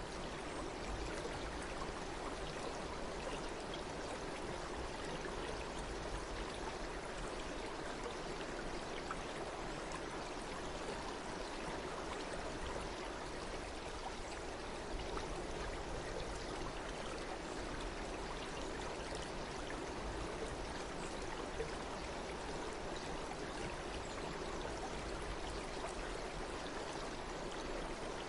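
Running water flowing steadily, an even unbroken rush.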